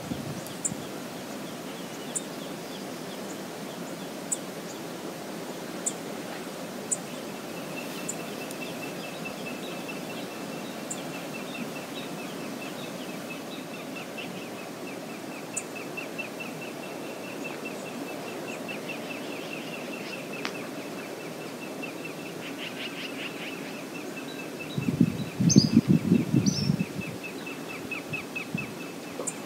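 Steady outdoor rush of river water and wind, with scattered short bird chips, a long rapid trill of even ticks at one pitch, and a couple of short falling calls near the end. About two seconds of louder low rumbling comes near the end.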